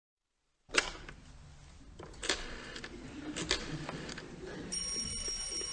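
A few sharp clicks, then about two-thirds of the way in a telephone bell starts ringing with steady high tones.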